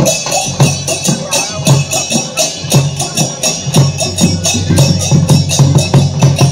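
Odia folk dance music: drums and jingling metal percussion beating a fast, steady rhythm, about four to five strokes a second, over a steady low tone.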